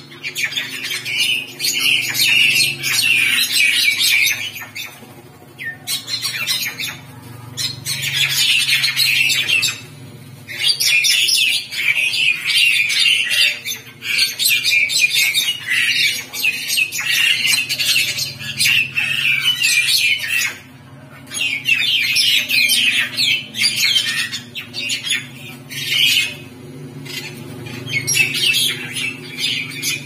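Birds fighting on the ground, giving harsh squawking calls in bursts of one to a few seconds, broken by short pauses.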